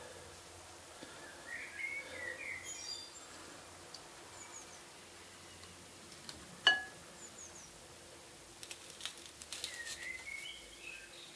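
Small birds chirping in short, gliding calls, twice in longer runs. About two-thirds of the way through comes a single sharp, ringing clink, the loudest sound, with a few soft clicks and handling noise near the end.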